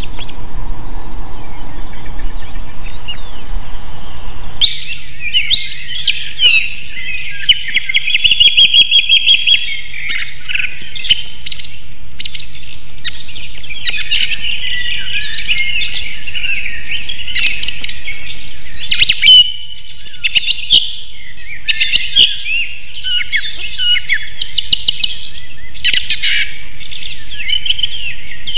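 Birds singing and chirping, many high calls and trills overlapping in quick succession. They cut in suddenly about five seconds in, after a few seconds of steady low noise.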